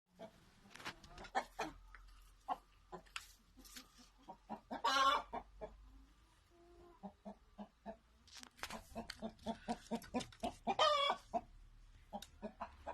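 Rooster clucking in a string of short, rapid clucks, breaking twice into a louder, longer squawking call, about five seconds in and again near eleven seconds.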